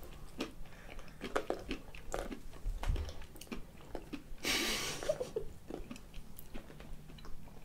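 People chewing and crunching snacks close to the microphone, with many small crisp clicks. A short breathy hiss sounds about four and a half seconds in.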